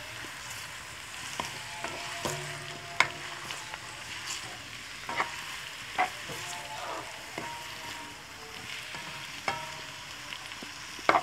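Sliced raw onions sizzling in hot oil in a metal kadhai while being stirred with a spatula. The spatula knocks against the pan every second or two with a sharp clink that rings briefly.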